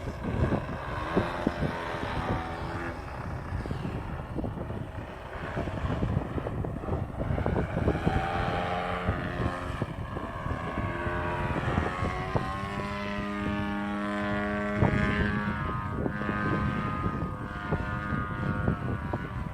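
Desert Aircraft DA-70 twin-cylinder two-stroke petrol engine of a large aerobatic RC plane buzzing through its propeller in flight, the pitch rising and falling with throttle changes and holding steadier for a few seconds about two-thirds of the way in.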